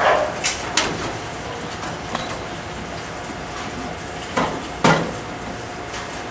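Bowling alley noise: a steady machine hum with several sharp clacks and knocks of bowling balls and pins, three close together at the start and two more, the loudest, about four and a half to five seconds in.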